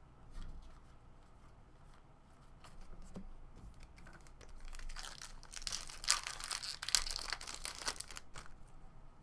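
A trading card pack's wrapper being torn open and crinkled, a dense crackling rip running for about four seconds in the second half, with small ticks and handling sounds before it.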